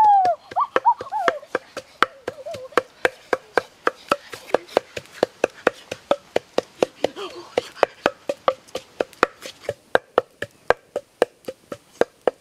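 Wooden pestle pounding in an earthenware mortar: a steady run of sharp knocks, about three to four a second. A child's rising-and-falling vocal exclamation is heard at the very start.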